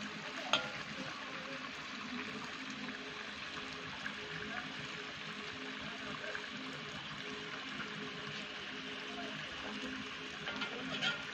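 Chicken karahi sizzling and simmering in a wok over a wood fire, a steady hiss, with a sharp metal clink about half a second in and another near the end as spoons strike the wok.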